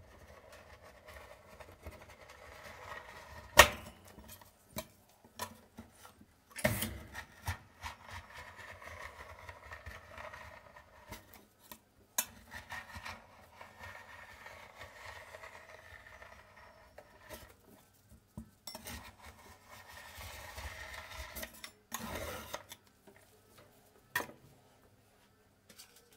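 Metal spatula scraping a thin sheet of frozen ice cream across a cold steel pan, curling it into rolls, in long rough strokes. Now and then the spatula clinks sharply on the pan; the loudest clink comes about three and a half seconds in.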